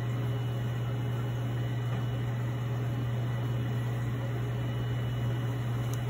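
Steady low machine hum with an even hiss underneath, unchanging throughout.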